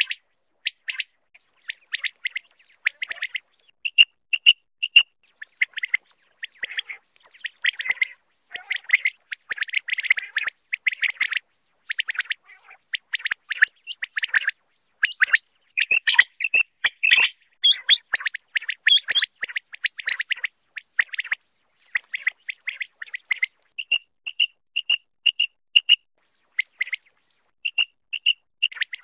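Common quail calling: a continual run of short, sharp chirps, broken several times by runs of three to six clear, evenly spaced whistled notes.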